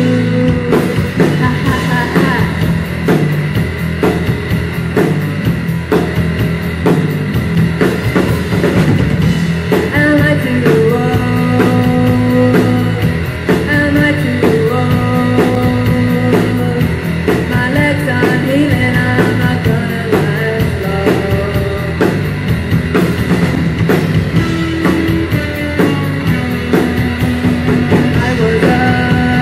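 Live rock band playing a song: a woman singing lead over electric guitars and a drum kit beating a steady rhythm.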